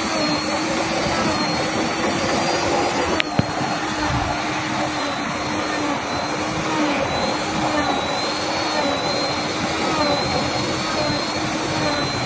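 Handheld 1850 W electric wood router running and cutting into a wooden relief panel: a steady high motor whine, its pitch wavering slightly as the bit takes load. One sharp click about three seconds in.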